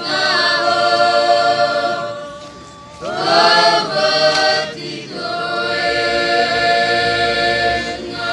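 Catholic youth choir singing in several parts, in long held phrases: a chord fades about two and a half seconds in, and new phrases begin about three and five seconds in.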